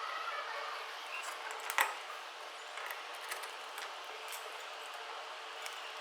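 Scattered small clicks and light knocks of plastic and metal parts being handled while an angle grinder is put back together, the sharpest about two seconds in, over a steady low hiss.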